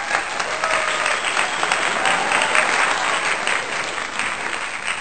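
A crowd applauding: dense, steady clapping, added to the soundtrack as a sound effect.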